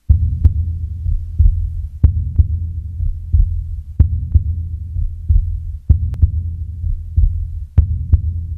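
Heartbeat sound effect: paired thumps about a third of a second apart, repeating roughly every two seconds over a low throbbing rumble.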